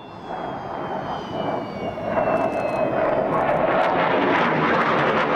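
MiG-21's single turbojet engine on a low display pass. A falling whine sits over the jet noise early on, and the noise swells over the first two seconds and stays loud as the fighter goes by.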